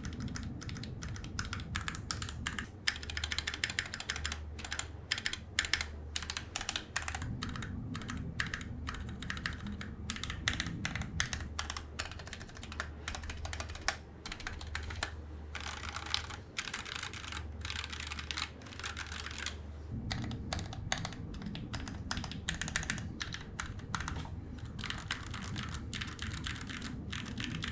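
Steady fast typing on a CNC-aluminium 60% mechanical keyboard (Kemove 61 Ares) with lubed Gateron Milky Yellow linear switches, a painter's-tape mod on the PCB and PBT keycaps: a continuous run of keystroke clacks with a few brief pauses.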